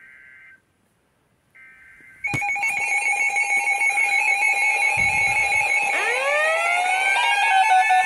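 Loud electronic alarm that starts suddenly about two seconds in, after a brief silence: several steady tones pulsing a few times a second, with rising sweeping tones joining about six seconds in.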